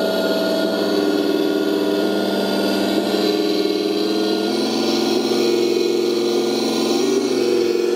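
Electronic RC sound module in a Tamiya Unimog 425 scale truck, playing a simulated truck engine through its small speaker, steady and loud. The engine note steps up in pitch about halfway through as the throttle is opened for the climb.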